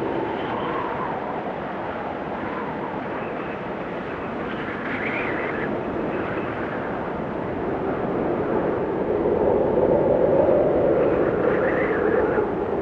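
Snowstorm wind blowing in gusts, with brief higher-pitched whistles about five seconds in and near the end, and a louder surge from about nine to twelve seconds.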